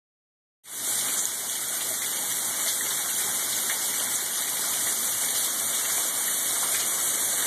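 Water pouring down from a flooded ceiling and splashing onto the floor and stored equipment, a steady hissing spray like heavy rain. It starts less than a second in.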